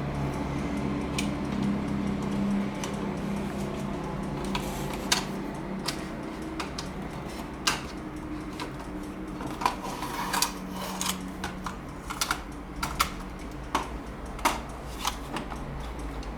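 Irregular sharp metal clicks and clacks from a toy revolver that shoots steel balls, a few with a brief metallic ring, over a steady low hum.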